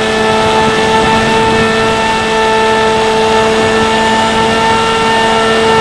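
Bix3 (Bixler 3) RC plane's brushless electric motor and pusher propeller running at a steady throttle, a constant buzzing hum at one pitch over a rush of air, picked up by a camera mounted on the plane.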